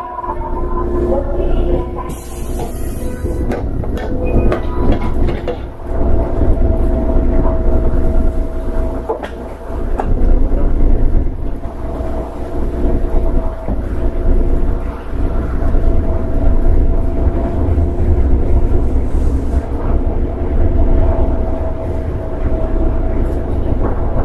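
Tokyo Metro 7000-series electric train running on the line, a steady low rumble of wheels on rail with a constant motor whine over it and scattered clicks. There is a brief hiss about two seconds in.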